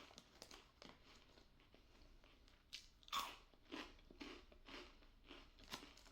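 Crunching and chewing of a curry-flavoured senbei rice cracker, close to the microphone. It is faint at first, then a run of crisp crunches about two a second through the second half.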